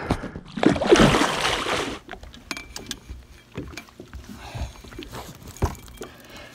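Water splashing for about a second at a landing net holding a muskie beside the boat, followed by scattered light knocks and clunks of handling in the boat.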